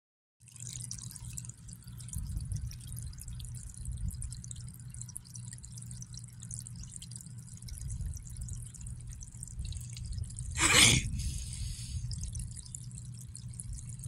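Water running and dripping from the open end of a garden hose lying in grass, a steady trickling wash with a low rumble under it. A brief, louder burst of noise comes about eleven seconds in.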